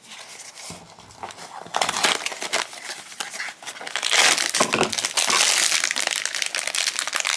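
Blind-box packaging being opened by hand: the cardboard box and its insert scrape and rustle, then a foil blind bag crinkles. The crinkling gets louder about halfway through and keeps up to the end.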